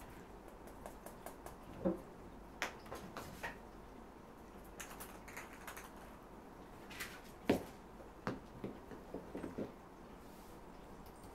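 Scattered light taps, clicks and knocks from cats playing and moving about a room, irregular, with one louder knock about seven and a half seconds in and a quick run of taps shortly after.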